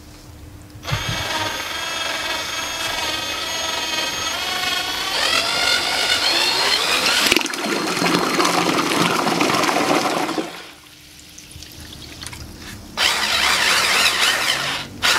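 Electric drill motor of a homemade kayak drive, spinning a propeller in a bucket of water: a steady motor whine that rises in pitch as it speeds up, then a loud churning and splashing of the water for a few seconds. It stops, and a second burst of churning comes near the end.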